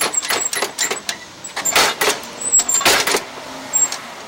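A snowblower housing being shaken by hand to get something out of it: a quick run of knocks and rattles, with two longer, louder rattling shakes about two and three seconds in.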